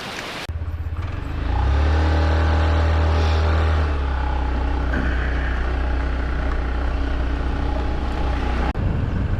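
Motorbike engine picking up speed over the first couple of seconds, then running at a steady cruising pitch. The sound changes abruptly near the end.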